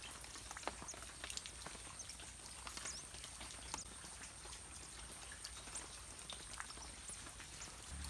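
Faint garden ambience: scattered soft ticks and a few brief high chirps over a steady thin high-pitched tone.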